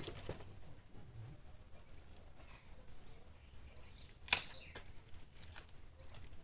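A single sharp knock of firewood being handled, about four seconds in, amid faint rustling and small clicks of wood being moved.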